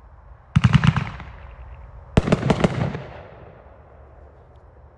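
A 500-gram consumer firework cake firing: two quick clusters of sharp bangs about a second and a half apart. Each cluster is a rapid string of cracks that rings away afterwards.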